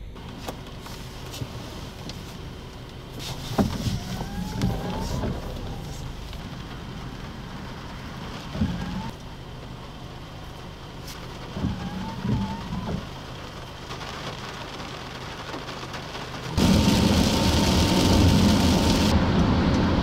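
Wind and road ambience with a few vehicles passing, then, about three-quarters of the way through, a sudden switch to loud rain and road noise inside a car driving on a wet highway.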